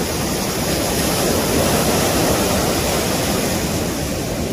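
Heavy storm surf: high waves breaking and rushing in, a loud continuous wash of water noise that swells a little in the middle.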